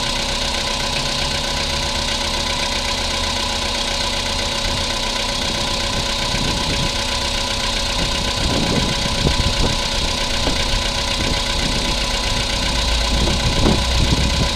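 Volkswagen Polo Sedan engine idling steadily, the car whose metallic knock is being recorded as a fault.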